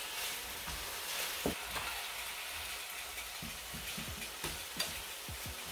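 Bok choy sautéing in hot oil with garlic and onion, a steady sizzle, with a string of short knocks and scrapes as a utensil stirs it against the pan, more of them in the second half.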